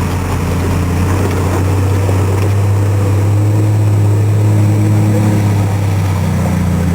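Suzuki Samurai's four-cylinder engine running at steady revs while driving. Its pitch rises slightly in the middle and eases off near the end.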